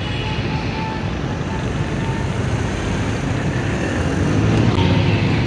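Steady street traffic: a low rumble of motor vehicle engines, growing a little louder about four seconds in.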